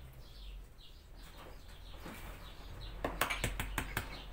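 Faint high chirps of a small bird repeating, then about three seconds in a quick run of sharp clicks and clinks as kitchen things are handled.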